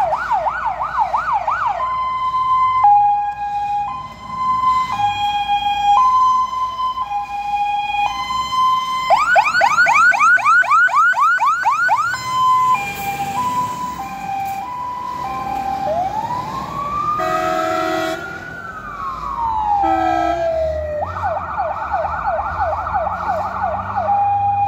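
Volvo FL280 fire engine's electronic siren switching between patterns: a fast yelp, an alternating high-low two-tone, and about two-thirds of the way through one long rising and falling wail. A horn sounds twice around the wail. The truck's low engine rumble comes up near the end.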